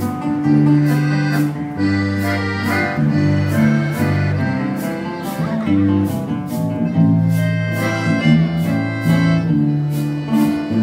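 Live accordion playing a waltz with guitar accompaniment and a tambourine tapping out the beat; an instrumental passage with no singing.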